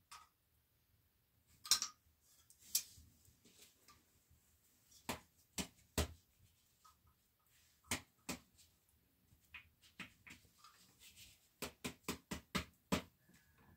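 Scattered sharp clicks and knocks at uneven intervals, with a quick run of them near the end.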